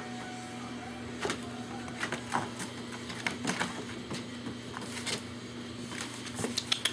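Irregular light clicks, taps and rustles of German shepherd puppies' claws and paws moving about on a paper-covered floor, over a steady low electrical hum.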